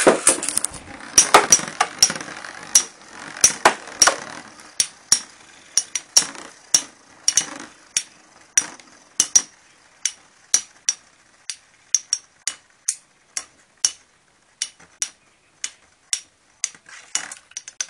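Two metal-wheeled Beyblade tops spinning and colliding in a plastic stadium: sharp clacks as they strike each other and the stadium wall. The clacks come thick over a spinning whir in the first few seconds, then settle to roughly two or three a second and space out toward the end.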